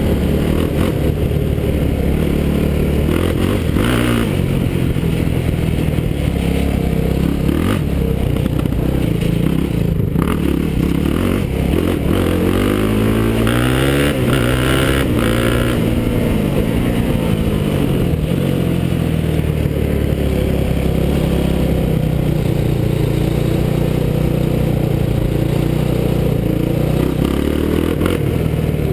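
Yamaha YFZ450 quad's single-cylinder four-stroke engine running under way, steady for most of the time, with the pitch rising and falling a few times midway as the throttle is worked.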